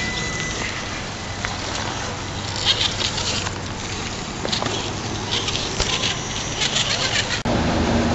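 Electric RC rock crawler working over rocks: a thin motor whine at first, then bursts of crackling and scraping as the tires and chassis grind on stone. Near the end the sound cuts abruptly to a louder steady hum.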